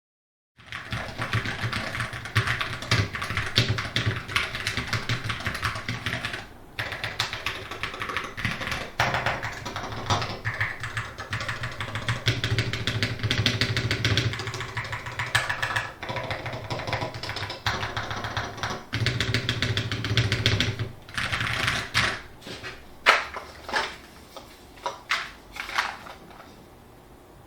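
Fast typing on a Monsgeek FUN60 keyboard with Akko Glare magnetic Hall-effect switches: a dense, continuous run of keystroke clacks. Near the end the typing breaks into a few separate, louder single presses.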